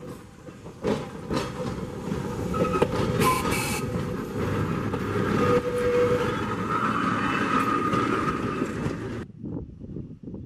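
Electric trolley car rolling past close by, its steel wheels clicking over the rail joints, with a few brief higher tones among the running noise. The sound cuts off abruptly near the end.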